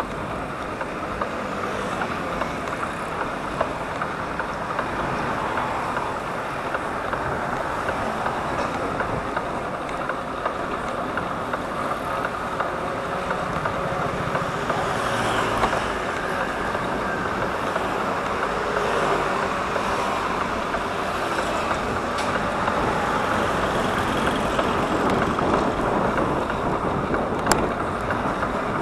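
Steady road traffic noise, an even rushing sound of vehicles on the road, with a single sharp click near the end.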